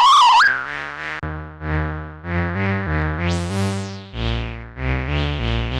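Formanta Polivoks analogue synthesiser playing a Moog-style patch. It opens on a loud, warbling high tone, then moves into a run of short bass notes stepping in pitch. About three seconds in there is a bright swell, and the notes get heavier and lower near the end.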